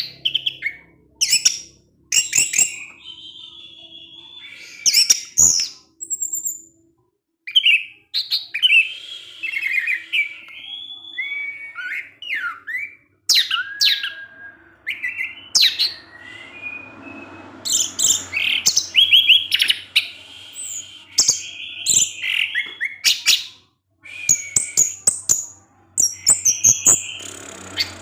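An orange-headed thrush (anis merah) singing a long teler song of sharp chip notes and fast warbled, sliding phrases, run together with short pauses between bursts.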